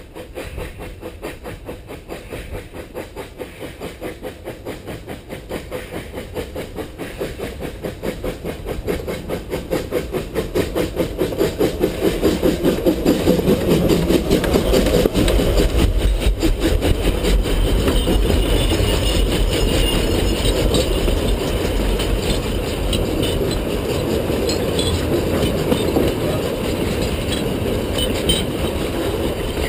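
Narrow-gauge 2-6-2T steam tank locomotive 6A chuffing with an even rhythm of exhaust beats that grow louder as it nears, loudest as it passes close by about halfway through. The carriages then roll past, their wheels clicking over the rail joints.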